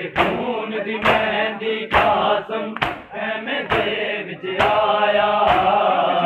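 Men chanting a Punjabi noha (Muharram lament) together, with the crowd's chest-beating (matam) landing in unison about once a second, seven strikes in all.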